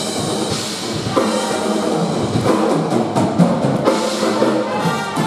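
Live polka band playing a dance tune with the drum kit to the fore, over pitched band instruments.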